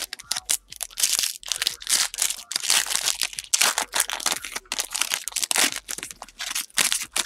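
Foil wrapper of a 2017-18 Panini Prestige basketball card pack being torn open and crinkled by hand: an irregular run of sharp crackling and ripping with short pauses.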